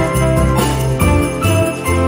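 Upbeat background music track with jingling bells over a steady beat, about two beats a second.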